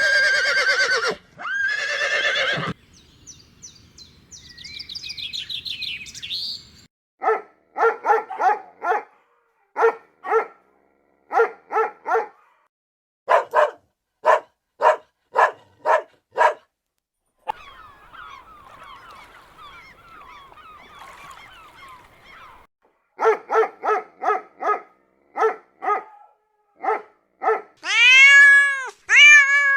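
A horse whinnying, then a dog barking in quick runs of short barks, with faint bird chirps in a pause between the runs, and a cat meowing near the end.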